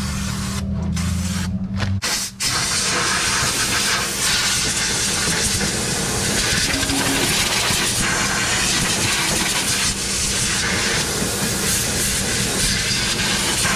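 An aerosol can of brake cleaner spraying in one long, steady hiss, starting about two seconds in, to wash seeping oil off the oil pan gasket area. Before the spray starts there is a steady low hum.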